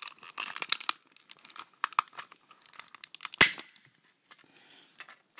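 Plastic shell of an old Dell ball mouse being pried and broken apart with a screwdriver: a run of crackling and creaking clicks, then one loud sharp snap about three and a half seconds in as the housing gives way.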